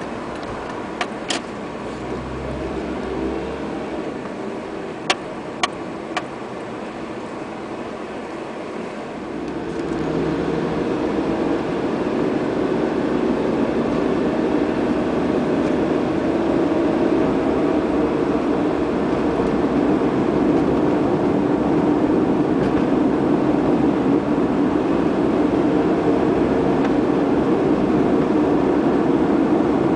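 Car cabin noise while driving on a city road: steady engine and tyre noise, with a few sharp clicks in the first six seconds. About ten seconds in, the noise grows louder as the car picks up speed and then holds steady.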